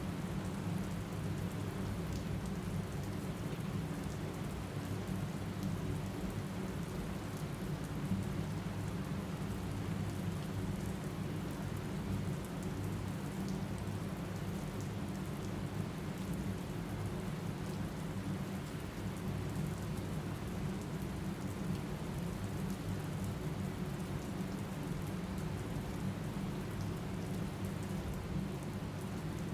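Steady rain falling, its sound deep and full, with faint scattered ticks of drops.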